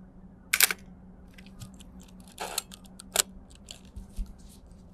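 Mamiya 645 Pro medium-format camera firing its shutter: a sharp double clack of the mirror and shutter about half a second in. After it come a short rasp, another sharp click, and small handling clicks.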